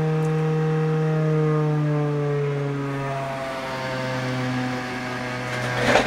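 IDE DVD drive whining as the disc spins at speed, its pitch sliding slowly down as the drive spins down, loud in a cheap, flimsy case that the owner blames for the noise. A short bump near the end.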